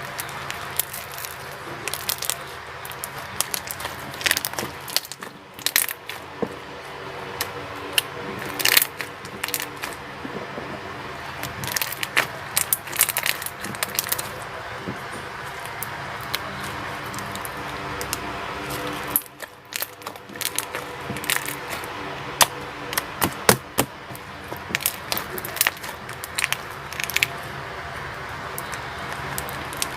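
Wood-glue slime with Playcorn mixed in, squeezed and kneaded by hand, giving irregular sharp crunches and crackles.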